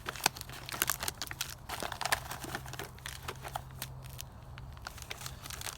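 Plastic MRE pouches and wrappers crinkling and rustling as they are handled, in many irregular sharp crackles.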